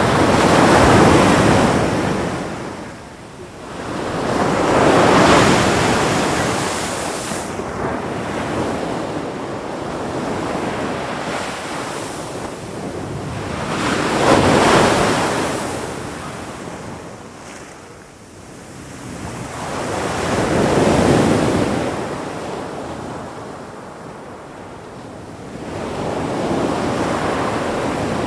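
Ocean waves breaking and washing up the shore: a rushing noise that swells and ebbs, with five surges a few seconds apart.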